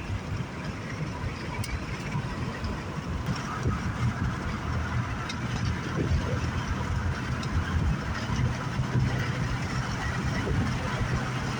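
Steady engine and road noise of a car, heard from inside the cabin while driving.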